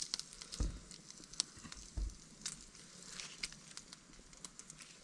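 Faint crackling and popping of the fire in the car-rim barbecue, scattered irregular clicks over a soft hiss, with soft low thumps about half a second and two seconds in.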